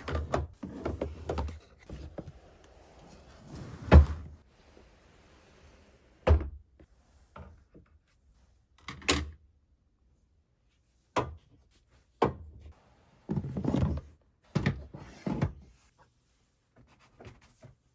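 A series of separate thunks and knocks at irregular intervals in a small room. The loudest and sharpest comes about four seconds in, and a quicker cluster of knocks follows near the end.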